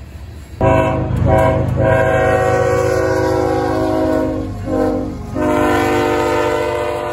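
Diesel freight locomotive's air horn blowing a long blast that starts suddenly about half a second in, with a couple of brief dips. It breaks off briefly around four and a half seconds in, then sounds again as another long blast. Beneath it is the low rumble of the passing train.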